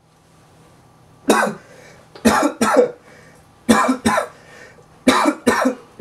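A man coughing: a single cough, then three pairs of short coughs at steady intervals.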